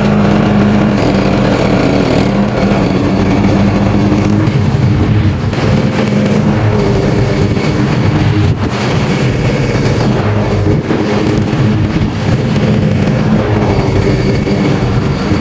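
Lawn mower engine running steadily at a constant pitch while mowing grass.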